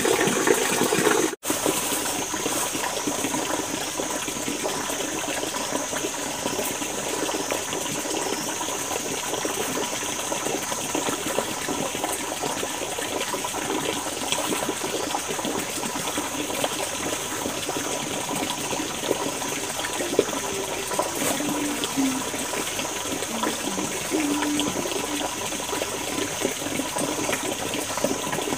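Steady rush of flowing water, with a brief dropout about a second and a half in.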